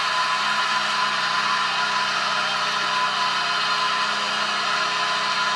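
Hockey arena crowd cheering in a steady, loud roar, celebrating an overtime goal.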